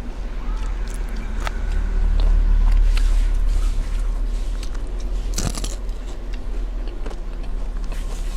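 A person eating close to the microphone: biting, chewing and crunching with small mouth clicks. Under it a low rumble swells about two seconds in and eases off by four, and a short, sharp rustle or clatter comes about five and a half seconds in.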